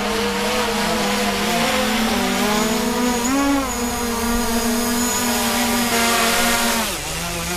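DJI Mavic Pro quadcopter on its original standard propellers hovering close overhead: a steady, higher-pitched propeller whine. Its pitch rises briefly about three seconds in and drops lower near the end as the drone comes down into the pilot's hand.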